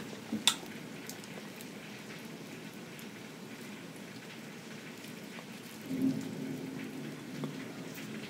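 Steady hiss of rain falling outside. A sharp crunch about half a second in as she bites a fried crab rangoon, and a short low hum around six seconds.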